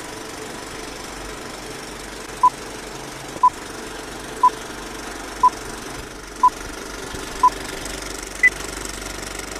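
Vintage film-leader countdown sound effect: six short beeps one second apart, then a seventh, higher beep, over the steady rattling whir of a film projector.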